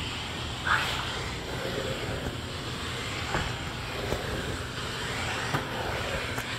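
Steam cleaner mopping a tiled floor: a steady rushing hiss over a low hum, with a few light clicks as the floor nozzle and its microfibre cloth are pushed about. A brief squeak about a second in is the loudest moment.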